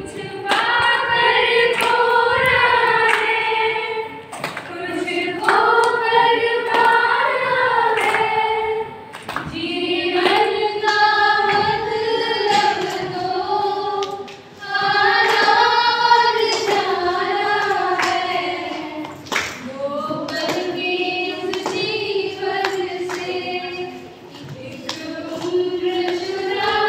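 A woman singing a song without accompaniment, in long phrases with held notes and brief pauses for breath between them.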